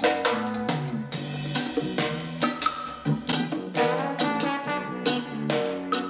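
A song with a drum kit played through small portable Bluetooth speakers, first the JBL Go 2 and then the Sony SRS-X11. The bass is weak, and the X11 sounds quite flat, with less bass than the Go 2.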